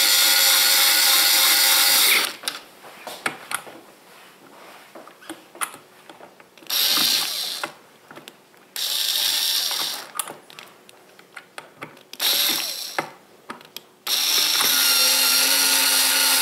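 Power drill driving and tightening screws into a blender's plastic motor-base cover in five short runs, the first and last about two and a half seconds long. Scattered clicks come between the runs as the driver is moved from screw to screw.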